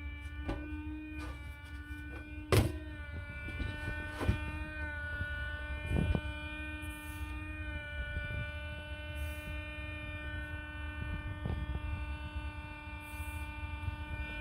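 Lian Li Galahad 360 AIO liquid cooler's pump running with a steady high whine over a low buzzing vibration: the sign of a faulty pump. A few sharp clicks and knocks sound over it, the loudest about two and a half seconds in.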